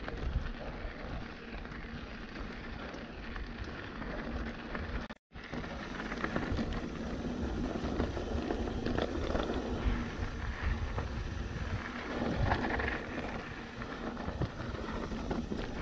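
Mountain-bike riding noise: wind buffeting the microphone and tyres crackling and rattling over a dirt trail. The sound cuts out completely for a split second about five seconds in.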